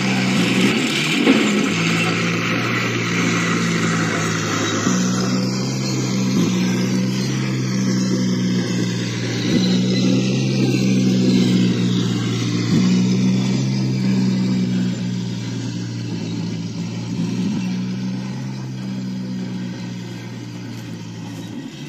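A 1/6-scale RC M3 half-track model driving over dry leaf litter: a steady low motor drone that shifts pitch in steps every few seconds. There is a noisy rustle higher up during the first few seconds.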